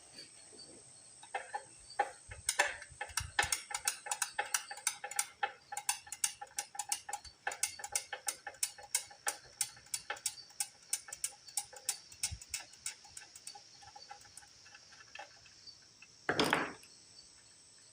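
Ratchet wrench clicking in a fast, even run of metallic ticks, about four a second, for around twelve seconds. A short rustle follows near the end.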